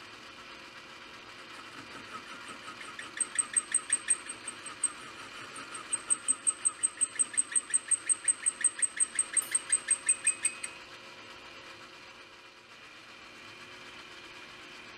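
Metal lathe running, with a sharp, high chirp repeating about five times a second from about three seconds in until near eleven seconds, as the cutting tool works the turning workpiece. After that only the steady run of the machine is left.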